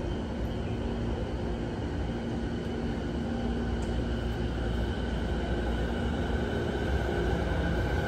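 JR East 209 series 500 electric commuter train pulling away from the platform: its traction motors hum and whine over the rumble of wheels on rails, growing louder toward the end as it gathers speed.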